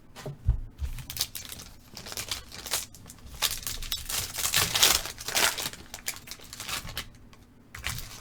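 Crinkling and tearing of a trading-card pack wrapper as a sealed pack is ripped open, in a run of irregular crackles that is loudest about halfway through.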